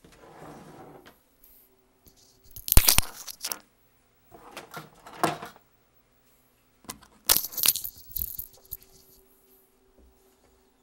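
Parts of a partly disassembled VCR being handled and set down: a soft rustle, then clattering knocks of plastic and metal, the loudest about three seconds in, with more clatters around five seconds and again about seven to eight seconds in.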